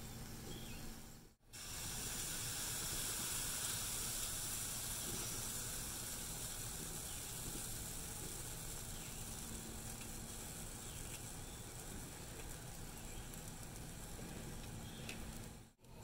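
Pancake batter sizzling on a hot, greased flat-top griddle: a steady, high hiss. It breaks off for a moment about a second in and again near the end, and is loudest just after the first break, then eases a little.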